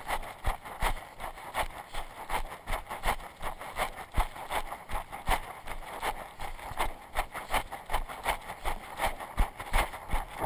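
A runner's footsteps thudding on a dirt trail in a steady rhythm of about two to three strides a second, heard through a camera worn on the runner's body, with rustling and jostling noise between the steps.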